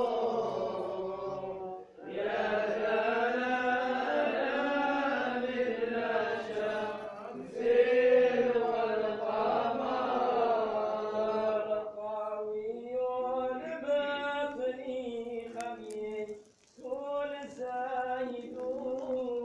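Men chanting a religious text in long, drawn-out melodic phrases, with short breaks for breath about two seconds in, midway, and near the end.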